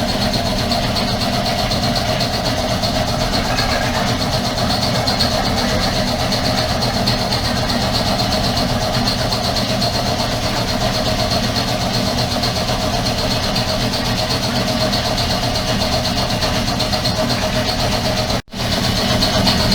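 Air compressor running steadily, a constant machine drone with a hum. The sound drops out abruptly for a moment about a second before the end.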